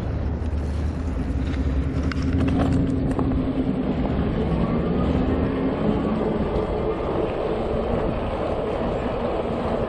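Road noise from riding an electric bicycle among car traffic: a steady low hum under a rushing noise, with a few faint clicks a couple of seconds in.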